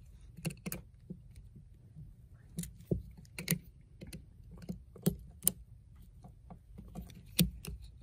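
Small metallic clicks and ticks at irregular intervals from handling a duplex wall receptacle and turning a screwdriver on its side terminal screw, clamping a hooked wire under it.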